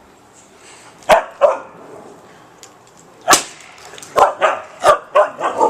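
A dog barking in short, sharp barks, a few spaced out at first and then several in quick succession near the end.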